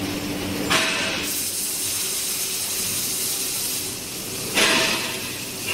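Pipe-processing machinery running steadily, with two short loud hisses, one about a second in and one near the end.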